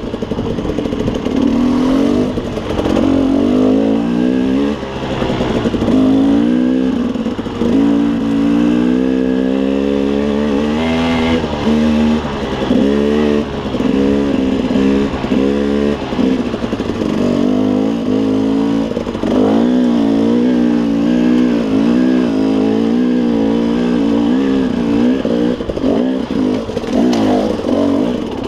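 KTM 300 two-stroke dirt bike engine revving up and down continually as the throttle is opened and closed on rough trail.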